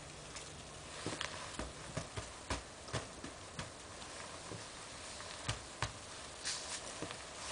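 Irregular crunches and soft thumps in snow, a few a second at times, loudest in short clusters.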